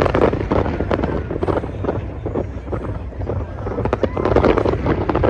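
Fireworks going off in quick succession, a dense run of crackles and bangs, over the voices of a crowd of spectators.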